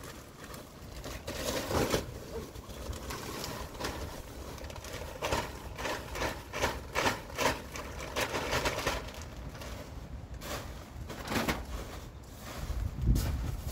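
Potting mix pouring out of a plastic bag of Sunshine Mix #4 onto a soil heap on a tarp, with the bag crinkling and crackling as it is tipped and shaken out. The crackling is densest about midway.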